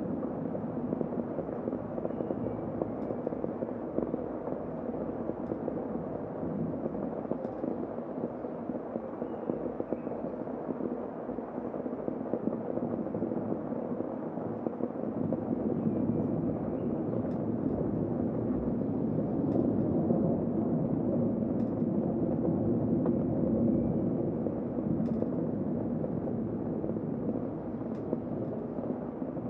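Heavy rain, a steady low rushing that grows louder for a while past the middle, with faint scattered ticks of drops.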